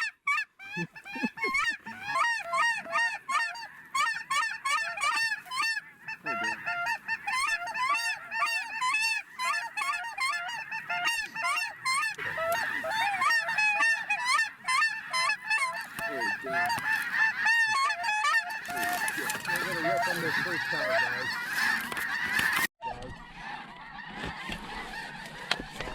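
A large flock of snow geese calling all at once, a dense chorus of many overlapping high honks. About three quarters of the way through it thickens into a continuous din, then cuts off abruptly, leaving fainter calling.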